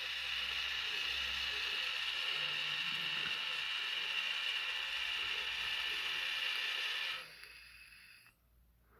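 Yaesu G-800SA antenna rotator's replacement electric motor and gear train running with a steady high-pitched whir. It cuts off about seven seconds in, as the end-of-travel limit switch stops the rotator.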